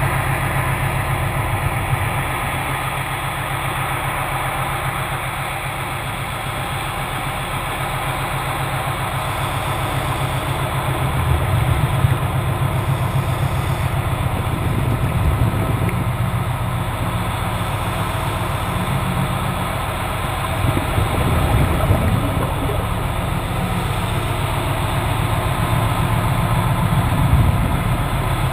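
Steady low engine-like hum, muffled as heard underwater, swelling and easing slightly in loudness.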